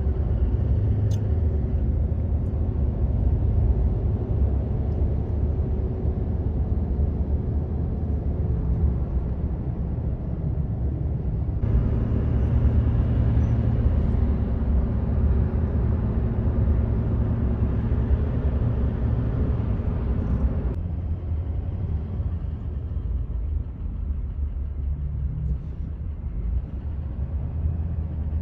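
Steady low road rumble of a truck cruising at highway speed, heard from inside the cab: tyre and engine noise. A hissier stretch starts and stops abruptly about twelve and twenty-one seconds in.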